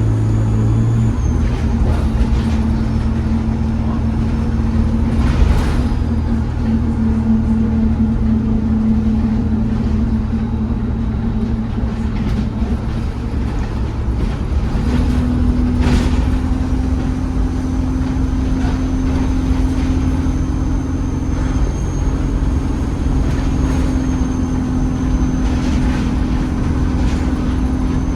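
ADL Enviro 200 single-deck bus under way, heard from inside the cabin: a steady engine note with a thin, high turbocharger whistle. About halfway through, the engine note steps up abruptly as the gearbox changes gear. A few sharp knocks and rattles come through along the way.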